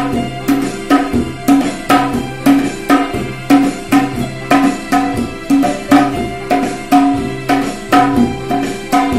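Tabla played in a steady beat of about two strong strokes a second with lighter strokes between, over sustained melody notes on a Casio electronic keyboard.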